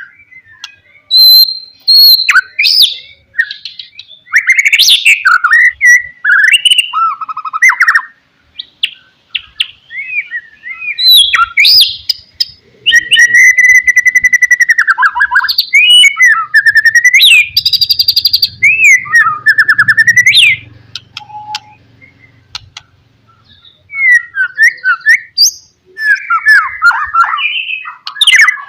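White-rumped shama (murai batu) singing loudly in bursts of varied phrases: sweeping whistled notes, fast chattering trills and a long rapid rattle around the middle, with short pauses between the bursts.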